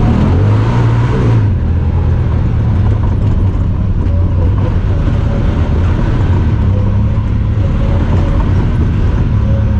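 Honda Talon 1000R side-by-side's parallel-twin engine running under way. It revs up briefly about half a second in, then settles to a steady drone.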